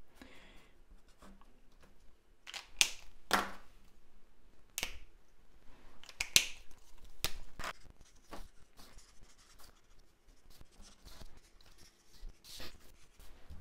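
Stampin' Blends alcohol markers handled and drawn over stamped cardstock: faint scratching of marker strokes, broken by a dozen or so sharp, separate clicks and taps of the markers and their caps.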